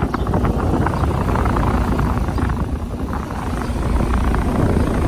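Trane XR16 central air conditioner's outdoor condenser unit running, with a steady fan and compressor hum.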